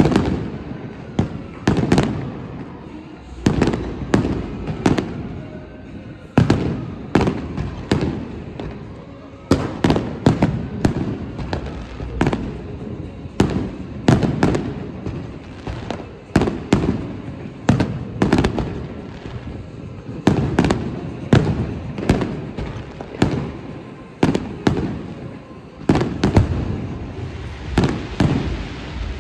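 Fireworks going off continuously: sharp bangs about every second, some in quick clusters, each trailing off in a rumbling echo.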